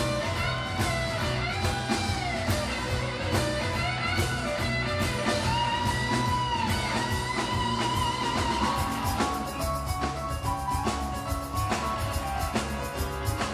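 Live rock band: a lead electric guitar solos with bent notes and one long held note, over bass and drums. Near the end the drums come forward with quick hits.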